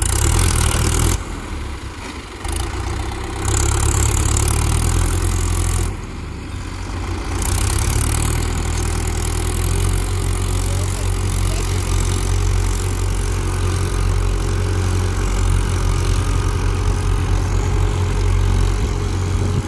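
Diesel engine of a Mahindra Yuvo 475 DI tractor running loud and steady under load as it tries to pull out of deep mud, with stretches of louder rushing noise in the first several seconds.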